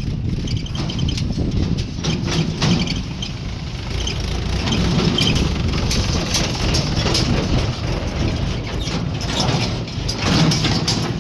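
Diesel engine of a JCB 3DX backhoe loader running under load, with repeated metallic clanks and knocks from the machine at work.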